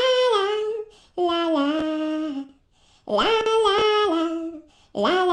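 A woman singing a wordless 'la la' tune unaccompanied, in four short phrases with brief pauses between them.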